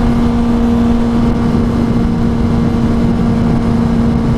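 Honda CB650R's inline-four engine running at a steady high rpm while cruising at about 130 km/h, its pitch holding constant, with wind rushing over the microphone.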